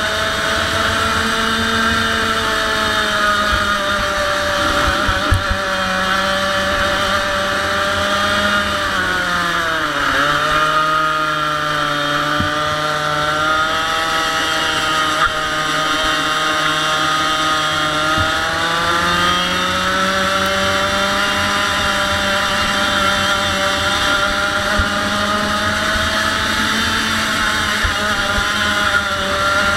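100cc two-stroke racing kart engine running at high revs. The revs drop sharply about ten seconds in, stay lower for several seconds, then climb back and hold high again.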